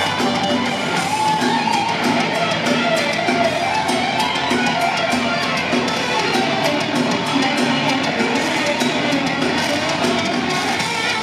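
A thrash metal band playing live and loud: distorted electric guitars over a drum kit, heard through the concert PA from within the crowd.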